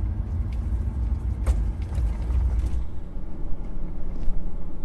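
Low road rumble inside a moving motorhome's cab, with scattered clicks and creaks from the cab interior. The rumble eases about three seconds in.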